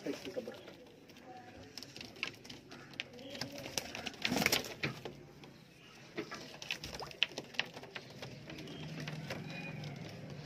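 A flock of teddy pigeons cooing, with scattered light clicks and a brief louder rustle about four and a half seconds in.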